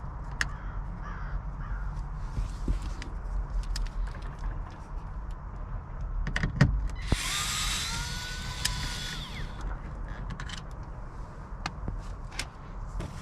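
Scattered clicks and knocks of hands working on plastic door trim. About halfway through, a small power tool runs for roughly two seconds with a slightly rising whine, the loudest sound here.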